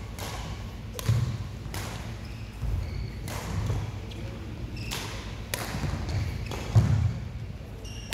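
Badminton racket strikes on a shuttlecock, sharp hits about once a second, with dull thuds of footsteps on the court floor, ringing in a large sports hall.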